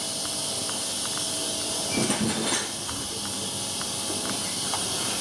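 Kia G4FC 1.6-litre four-cylinder engine turned over on its starter for a compression test on the fourth cylinder, with a steady hiss over it, a louder patch about two seconds in and faint clicks.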